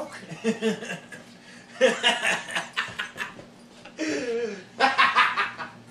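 Men laughing and chuckling in uneven bursts, loudest about two seconds in and again near the end.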